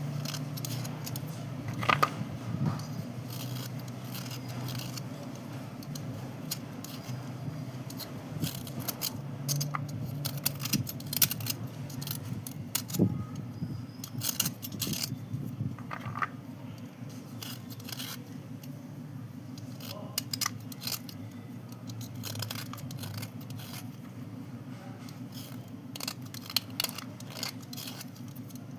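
White slate pencils and chalk pieces being scraped and crunched, giving irregular sharp scratches and clicks, over a steady low hum.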